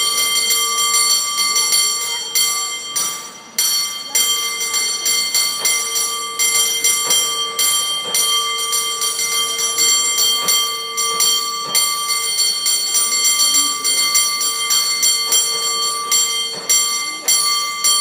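Cable car bell rung by hand in a quick, rhythmic pattern of strikes that keep it ringing continuously, with a short break about three seconds in.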